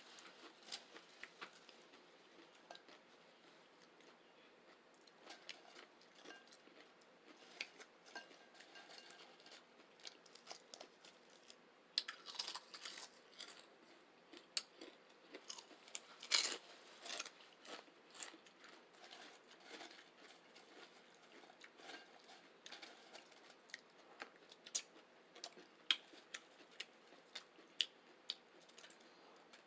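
Close-miked chewing and crunching of chips loaded with chili and beans: irregular crisp crunches and mouth clicks, coming in louder clusters about twelve and sixteen seconds in.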